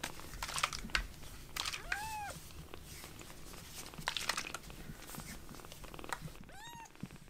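A tiny kitten mewing twice, short high mews that rise and fall, about two seconds in and again near the end. Between the mews comes soft rustling as the kittens crawl over a fleece blanket.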